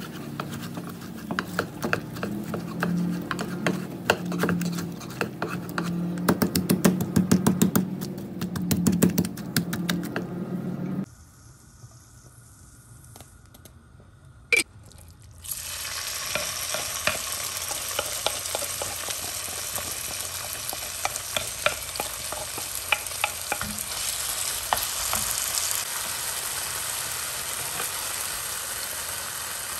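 Chicken deep-frying in hot oil: a steady sizzle with scattered crackling pops. The first part is louder with dense crackling, and midway a few quieter seconds are broken by one sharp click.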